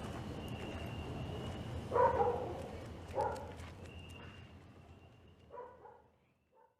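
A dog barking four times over low background noise, the first bark the loudest, and everything fading out near the end.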